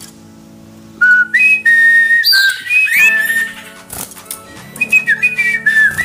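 Caged sirtu songbird whistling: clear notes that slide up and down between pitches in short phrases, starting about a second in, with a few sharp taps among them.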